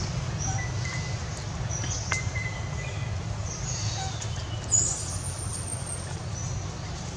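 Forest ambience: scattered short, high-pitched chirps and calls over a steady low rumble, with one louder brief call just before five seconds in.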